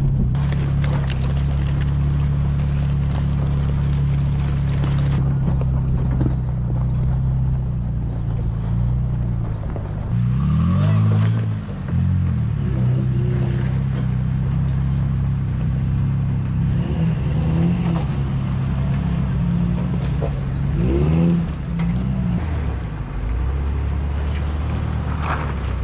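Off-road truck engine running steadily at low revs, with the revs rising and falling twice, about ten seconds in and again about twenty-one seconds in.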